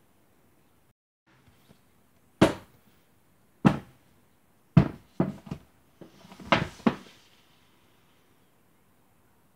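Paperback books being set down and handled on a tabletop: a series of sharp knocks, the first three about a second apart, then a quicker run of knocks with some rustling among the last ones.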